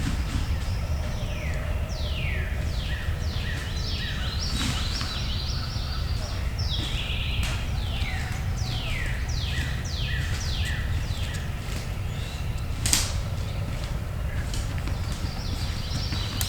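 Songbirds singing in the woods at dawn, a steady run of clear whistles that each slide downward in pitch, with a few short held high notes between them. A low wind rumble on the microphone sits underneath, and a single sharp click comes about thirteen seconds in.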